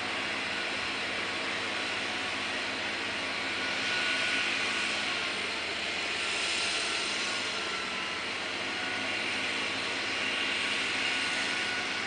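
Kubota B3030 tractor's three-cylinder diesel engine running steadily under load as it drives a front-mounted snowblower, with the rush of snow being thrown. The rushing swells and eases a few times.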